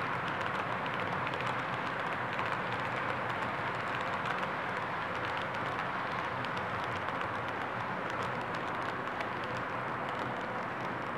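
Model freight train cars rolling past on the layout's track: a steady rolling noise of wheels on the rails, with many small irregular clicks.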